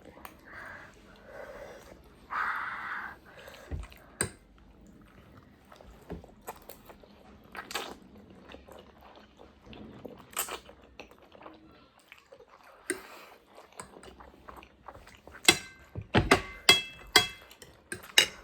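Close-miked eating: chewing and biting food with scattered small clicks, then near the end a quick run of utensils clinking against a bowl or plate.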